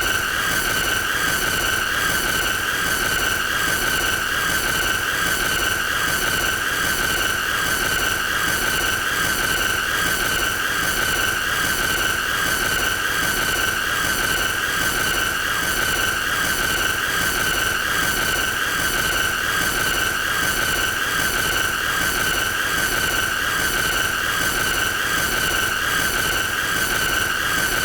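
A continuous, loud, shrill squeal held at one steady pitch, with an overtone above it and a hissy edge that pulses quickly and evenly.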